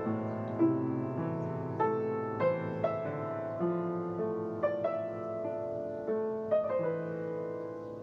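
Piano playing a slow, tender melody over held chords, one note struck about every half second, getting gradually softer near the end.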